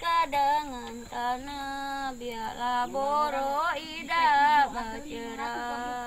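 A high voice singing long held notes that waver and slide in pitch, over a steady low held tone.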